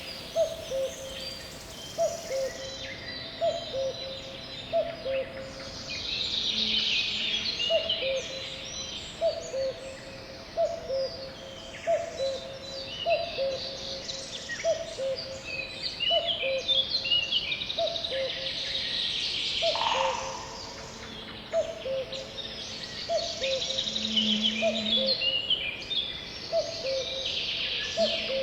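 Forest bird chorus of many high chirps and twitters. Under it, one low hooting call repeats steadily about every second and a half, each call two short notes with the second note lower.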